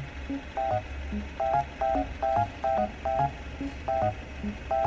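Bouncy background music: short bright staccato notes in pairs, about two a second, over a stepping bass line.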